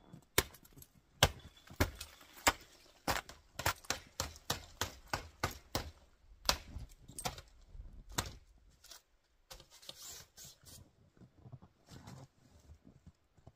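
Sharp clicks and clinks of gear being handled, two or three a second and irregular, thinning out to a few fainter ones after about eight seconds.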